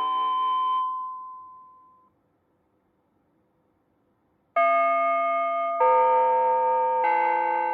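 Electronic announcement chime played through an ageing NEC loudspeaker, which the owner says distorts even at very low volume. The last note of one chime rings out and fades over about two seconds, and after a short silence a new chime begins with three notes about a second apart.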